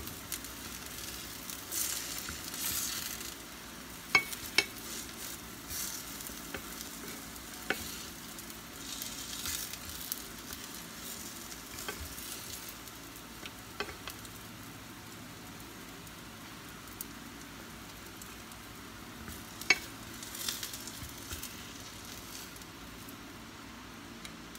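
Battered banana fritters sizzling in hot oil in a frying pan, with a steady hiss that swells twice. A few sharp clicks of the spatula and fork against the pan.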